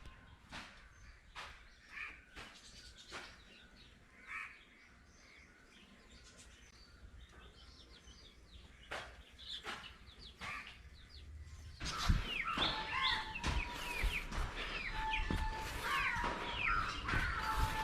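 Birds chirping and calling, with scattered knocks and clicks; the birdsong grows louder and busier about twelve seconds in.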